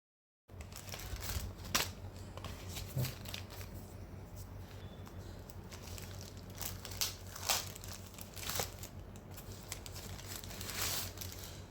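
Packaging crinkling and rustling as a boxed USB-C charging cable is handled and unwrapped, in scattered short crackles with a few louder ones.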